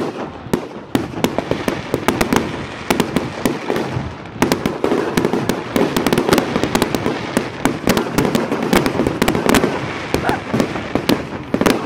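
Fireworks going off in quick succession: many sharp bangs and crackles, coming thicker from about four seconds in.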